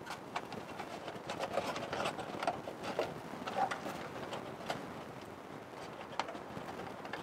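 Faint rustling and small scattered clicks of stiff birch bark as a rolled inner liner is worked by hand down into a birch bark container.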